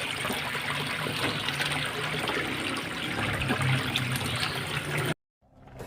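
Water trickling steadily in a small drainage ditch, cutting off abruptly about five seconds in.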